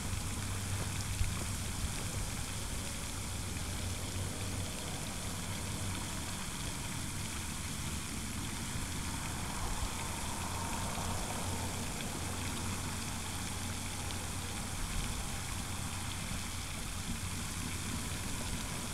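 Steady outdoor background noise with a constant low rumble and an even hiss, and no distinct events.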